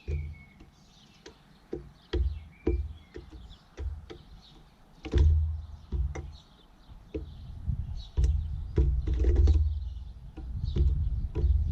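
Faint short bird chirps and scattered sharp clicks over repeated low rumbling thumps, which are the loudest sound and grow heavier about five seconds in.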